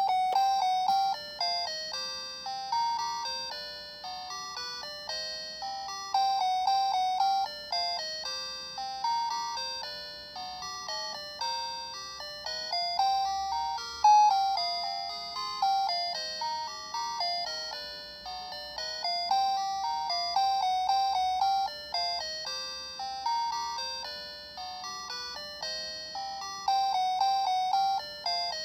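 Toy mini garbage truck playing its electronic chime melody, a tune of quick single notes that each ring and fade.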